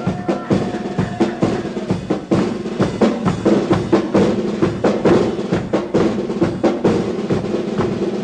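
Drum-led march music: snare and bass drum beating a steady march rhythm, about three strokes a second, over held instrument notes.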